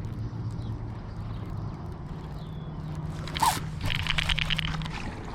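A fishing reel being cranked to retrieve a spinnerbait, under a steady low hum. About three and a half seconds in comes a sharp snap, then a fast zipping run of clicks lasting about a second, as the fish takes the lure.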